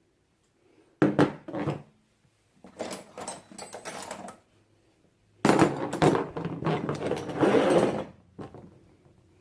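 Old metal hand tools being handled and shifted about, knocking and clattering against each other. A few short knocks come about a second in, some lighter scraping follows, and a longer, louder rattle runs from about five and a half to eight seconds.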